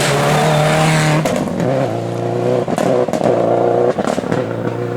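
Rally car engine running hard at high revs, its note steady and then dropping in pitch about a second in, with short breaks in the sound three times.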